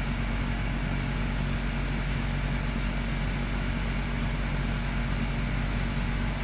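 Steady mechanical hum with a constant rushing noise, unchanging throughout.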